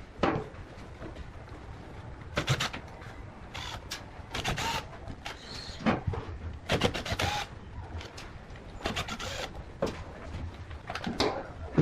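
Irregular handling noises: sharp knocks, clicks and short scrapes about once a second over a low background rumble, with no steady motor running.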